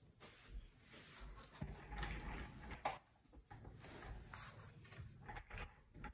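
Rummaging in a drawer: rustling and small knocks of objects being handled, with one sharp click about three seconds in.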